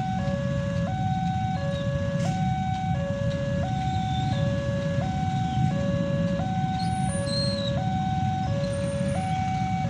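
Railway level crossing warning alarm sounding its repeating two-tone signal, a lower and a higher note alternating about once a second, over a steady low rumble of engines.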